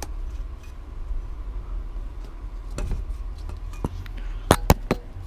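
Handling noise: a steady low rumble with scattered clicks, and a quick run of three sharp knocks about four and a half seconds in.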